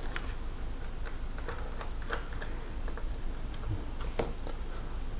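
Small screwdriver working the last screw out of the HP ProBook 455R G6 laptop's bottom case: a handful of sharp, scattered clicks and ticks, the loudest about four seconds in.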